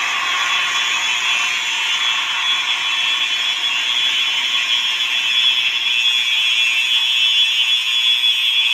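Simplex 4903-series fire alarm horn strobes sounding continuously: a steady, harsh, buzzy horn blare with no breaks, strongest in the high range.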